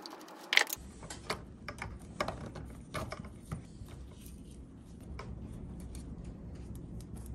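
Irregular light metallic clicks and clinks: a screwdriver turning out small screws, and small metal parts and a cover plate being handled on an aluminium engine case.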